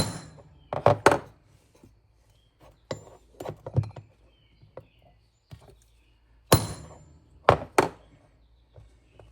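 Sharp knocks and taps on the metal and plastic parts of a garage door opener's gear and shaft assembly as the shaft is shifted to center it. There are two strikes at the start and about a second in, a few lighter ones around three to four seconds in, and three more from about six and a half seconds on.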